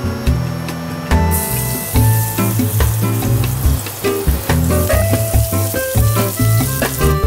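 Minced garlic and sliced green onions sizzling in hot oil in a nonstick frying pan. The hiss starts about a second in, when the garlic hits the oil. Background music with a steady bass line plays underneath.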